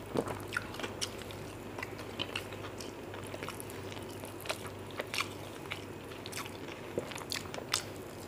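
Eating sounds from a meal of mutton biryani eaten by hand: chewing with many short, scattered wet clicks, and fingers working the rice on the plate.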